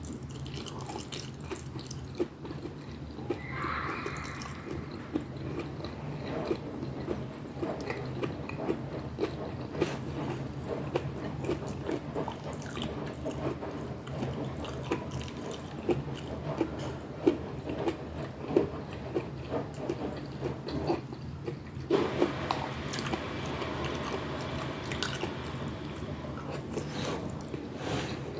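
Close-miked mouth sounds of a person eating pinakbet: chewing with many small, irregular wet clicks and smacks, over a low steady hum.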